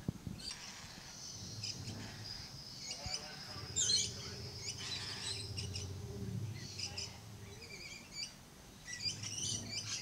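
Lories chirping: a run of short, high chirps and tweets, loudest about four seconds in, over a faint low hum.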